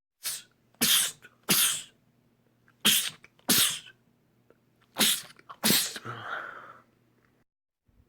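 A man sneezing six times in quick succession, in three pairs, with a softer breathy sound after the last sneeze.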